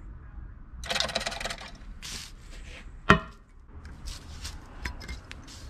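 Aluminium jig mold being handled: a scrape about a second in, then one sharp metallic clank with a short ring about three seconds in, followed by a few light clicks.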